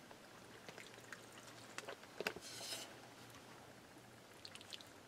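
Wooden spoon stirring chunky chicken and vegetable soup in a pan: faint scattered taps and stirring sounds, with one sharper knock a little over two seconds in.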